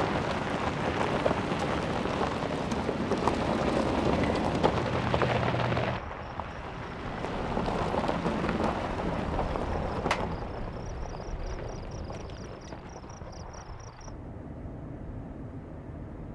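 Mercedes-Benz GLS 580 SUV driving along a dirt and gravel track: rough tyre noise crackling over loose gravel, mixed with engine and wind noise. The noise breaks off about six seconds in and starts again, and it drops to a quieter, steadier hum near the end.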